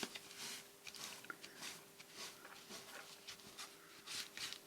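Faint rubbing and rustling of paper as a glued paper die-cut is pressed down and excess glue is wiped off, in a series of short scratchy strokes over a faint steady hum.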